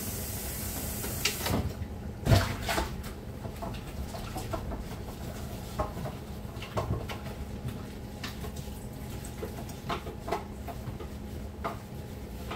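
Washing up at a kitchen sink: dishes and utensils give irregular clinks and knocks. A hiss at the start cuts off suddenly about a second and a half in.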